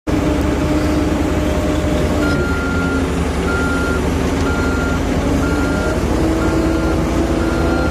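Wheel loader's diesel engine running loudly as it backs away, its reversing alarm beeping about once a second from about two seconds in.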